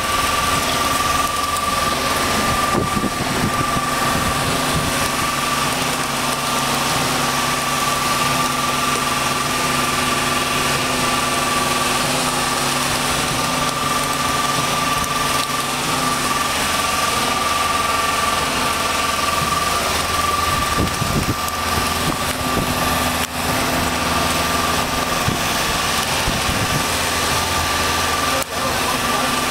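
A concrete pump's engine runs steadily, with a steady high whine over it, while concrete is pumped through the hose into the forms.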